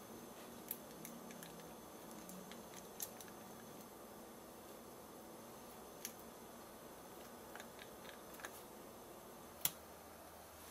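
A few faint, sharp clicks of utensils against a stainless steel mixing bowl over quiet room hiss, the loudest near the end.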